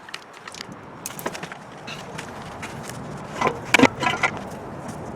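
Scattered clicks and knocks of hands and tools working on car parts, with a quick run of louder clicks about three and a half seconds in.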